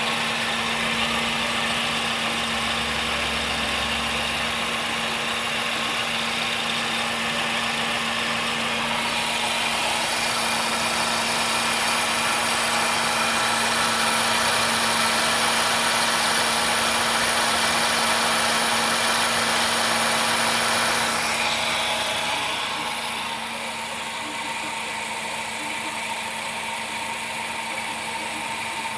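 Car engine running with a steady hum under a loud hiss. This is the abnormal noise it has made since driving through a flooded street. The sound grows louder about a third of the way in and drops back about three quarters through.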